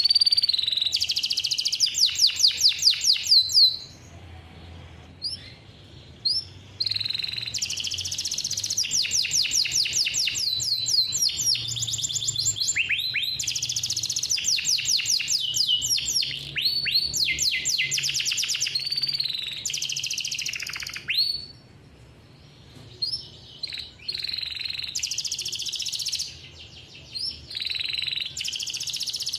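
Male domestic canary singing a long song of high, rapid rolled trills, with several short breaks between phrases.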